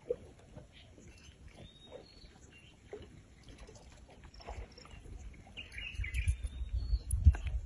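Faint birds chirping in the background, with scattered small clicks and knocks. Low rumbling thumps grow louder over the last couple of seconds.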